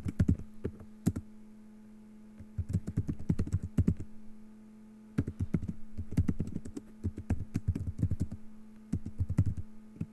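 Typing on a computer keyboard, in several quick bursts of keystrokes with short pauses between them.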